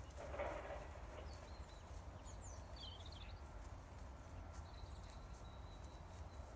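Faint hoofbeats of a horse trotting on grass, with a short noisy burst about half a second in. A bird chirps a few times two to three seconds in, over a low steady rumble.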